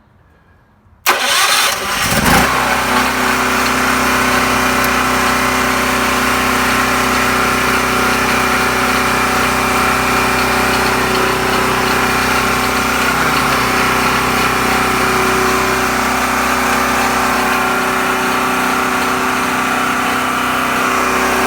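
Dual-fuel 5,500-watt portable generator electric-started: the starter cranks about a second in, the engine catches within about a second and a half, then runs at a steady speed.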